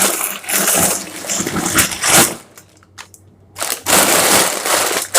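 Kurkure snack packets crinkling as they are handled, in two spells with a short pause about two and a half seconds in.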